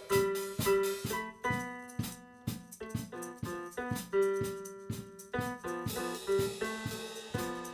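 Instrumental music: piano or electric-keyboard notes over a drum kit, in a quick, steady rhythm.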